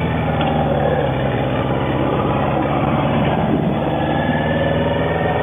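Motorcycle engine idling steadily while stopped in traffic.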